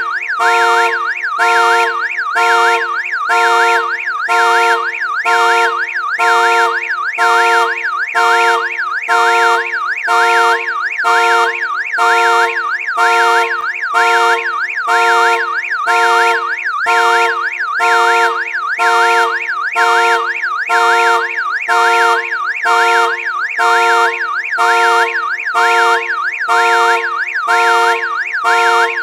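Car alarm sounding loudly, a warbling electronic tone with quick up-and-down pitch sweeps repeating in an even, fast cycle without a break.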